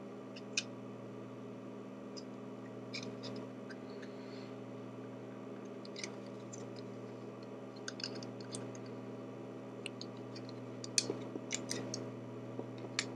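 Scattered, irregular light clicks and taps from handling the unboxing packaging, over a steady low electrical hum.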